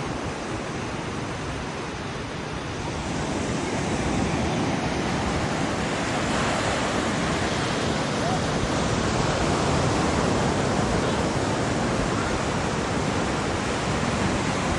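Ocean surf: waves breaking and washing, a steady rushing that swells a little a few seconds in, with wind on the phone microphone.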